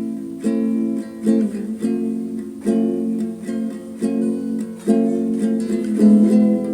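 Instrumental music: an acoustic guitar strumming chords, a new chord struck about once a second.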